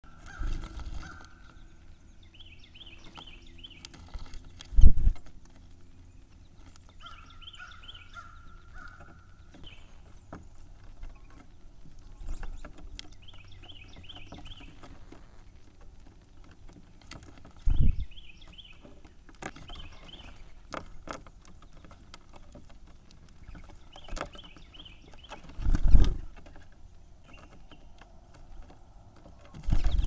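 Songbirds at a feeder right by the microphone: loud, brief thumps of wings and landings against the feeder and camera four times, with a background bird repeating the same short trilled song phrase every few seconds.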